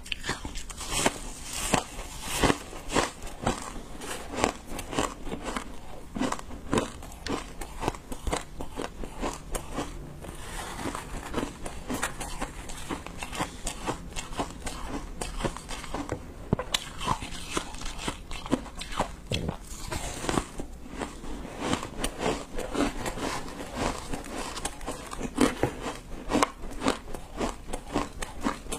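A person biting and chewing blocks of packed green matcha shaved ice: a dense, continuous run of crisp crunches and crackles.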